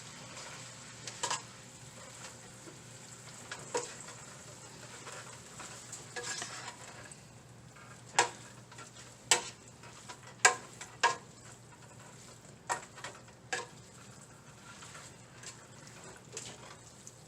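A utensil stirring and tossing pancit bihon noodles with vegetables in a large pot, knocking against the pot at irregular moments over a steady low sizzle.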